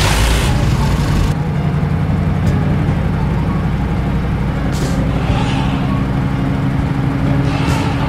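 Heavy engine of a backhoe loader running steadily as the vehicle drives away, with a couple of short hisses about five seconds in and near the end.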